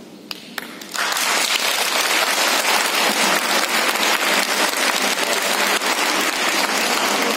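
Audience applauding: a couple of single claps, then the whole crowd breaks into applause about a second in and keeps clapping steadily.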